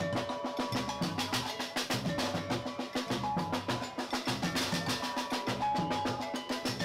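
Percussion band playing a fast, driving rhythm on large strapped bass drums and snare drums, with many quick strikes.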